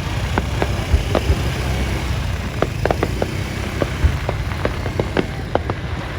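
Fireworks going off: a rapid, irregular string of sharp cracks and pops, with a few deeper booms, over a steady low rumble.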